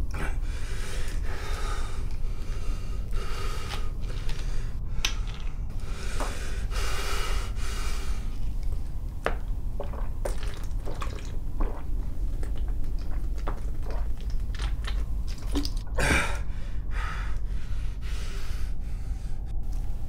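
A man gulping a drink from a plastic bottle, with heavy breaths and gasps between swallows and a few small clicks partway through; one sharp gasp about 16 seconds in. A steady low rumble runs underneath.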